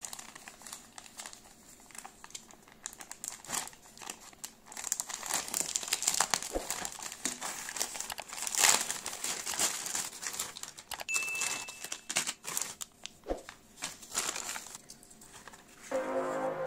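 Plastic mailing bag being torn open and crumpled by hand: a busy run of crinkles and rips, loudest around the middle. Background music comes in near the end.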